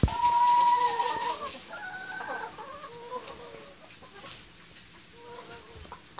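Domestic hens clucking and calling, with one loud drawn-out call at the start, then several shorter, softer clucks.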